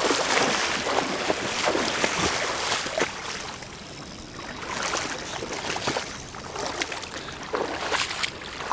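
Shallow river water splashing and swishing around wading legs, with the riffle running steadily underneath; the splashing is louder for the first few seconds, then eases.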